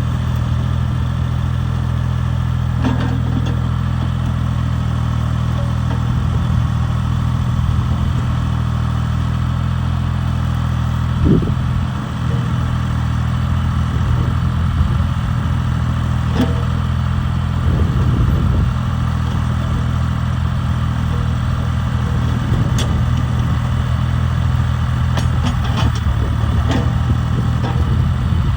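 Mini excavator's engine running steadily, with a few sharp knocks from the machine working.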